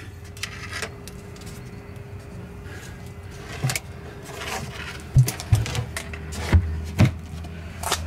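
12-volt Coleman thermoelectric cooler running with a steady fan hum, while its plastic lid is handled, giving several sharp knocks in the second half.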